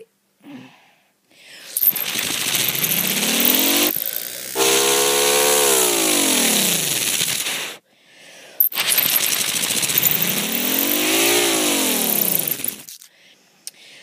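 Homemade miniature model of a Thunderbolt 1000T siren run up twice, each time its wail rising in pitch to a peak and then falling away as it winds down, over a loud rushing hiss.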